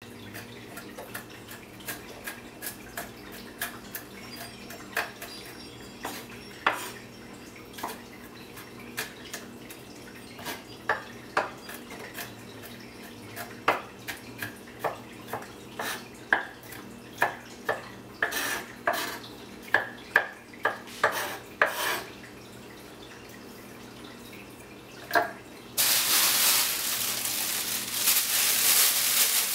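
Dishes and utensils clinking and knocking on a kitchen counter during food preparation: scattered single clinks, growing busier in the middle, over a faint steady hum. Near the end a loud steady rushing noise starts and keeps going.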